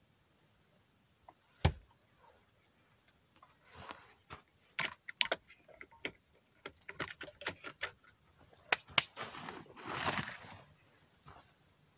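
Gear being handled at a MOLLE backpack: irregular sharp clicks and rattles, one about two seconds in and a quick run of them in the middle, then a longer rustle about ten seconds in.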